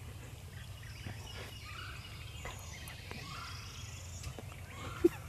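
Wild turkey gobbler calling while strutting, with faint gliding bird calls over a steady low rumble. A brief loud low note comes just before the end.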